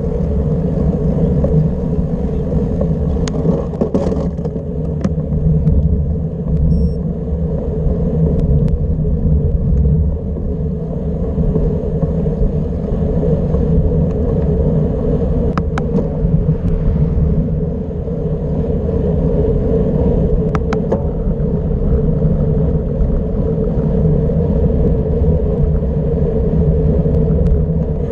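Steady road rumble of bicycle tyres rolling fast down an asphalt descent, mixed with wind buffeting and road vibration picked up through the bike-mounted camera. A few sharp clicks and rattles come through now and then.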